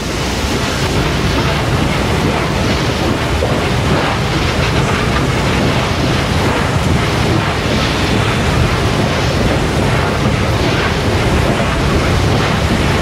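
Reading T-1 4-8-4 steam locomotive No. 2102 and its train under way: a loud, steady rushing roar with no separate exhaust beats standing out.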